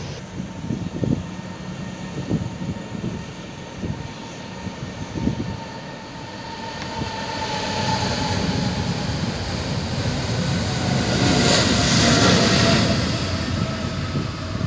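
Jet airliner's engines at takeoff power during its takeoff roll: the roar builds to its loudest about twelve seconds in, then eases as the plane lifts off, with a whine that drops slightly in pitch. Wind gusts buffet the microphone throughout.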